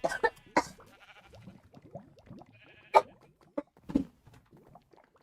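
A girl coughing: a quick run of three coughs at the start, then single coughs about three and four seconds in.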